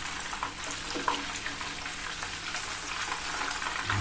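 Hot oil sizzling steadily around breaded chicken cheese balls deep-frying in a pan, with fine crackles through it.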